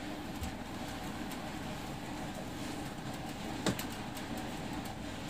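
Steady low background hiss, room tone, with a single light click about three and a half seconds in.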